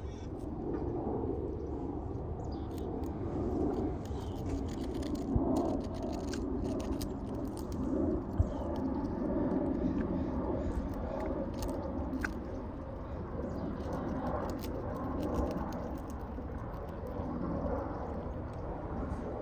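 Birds pecking and tugging at a chip bag: scattered sharp crackles of the packet over a steady low rumble.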